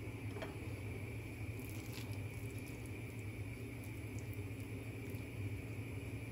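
Soft squishing and a few light clicks from boiled onions being cut and their soft layers pulled apart by hand, over a steady low hum.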